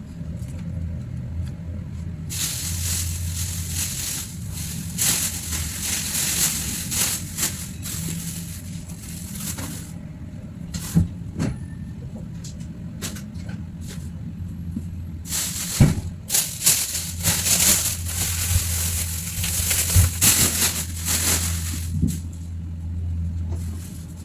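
Plastic shopping bags crinkling and rustling as groceries are handled, in two long stretches with scattered knocks and clicks between them, over a steady low hum.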